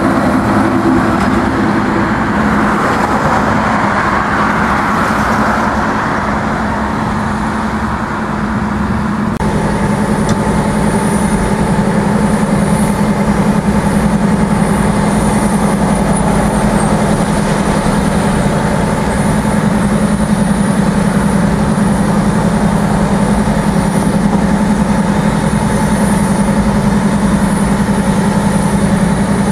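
Heavy road traffic noise, with a truck passing in the first few seconds. About a third of the way in it changes abruptly to a steady engine hum with a thin high whine.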